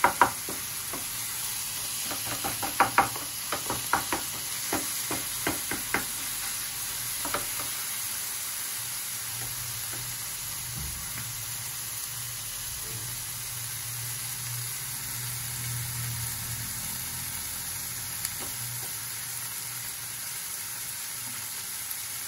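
Onions and tomatoes sizzling in a nonstick frying pan, with a wooden spatula knocking against the pan in quick strokes during the first several seconds as they are stirred. After that only a steady frying sizzle remains.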